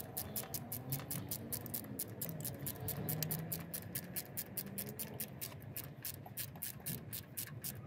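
Small socket ratchet clicking quickly and evenly, about five clicks a second, as a 7 mm socket is worked back and forth to tighten a jubilee hose clamp on a car's lower radiator coolant hose.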